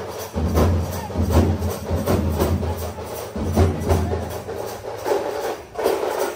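Procession drumming from a band of large barrel drums: a fast, steady beat of sharp strikes over a deep boom, which thins out in the last couple of seconds.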